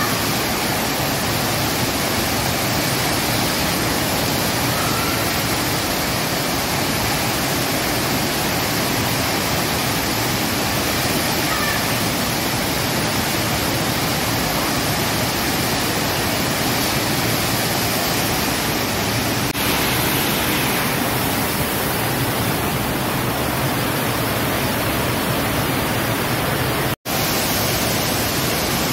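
Loud, steady rush of water from an indoor surf simulator, a thin sheet of water pumped at speed up its padded slope. The sound cuts out for an instant near the end.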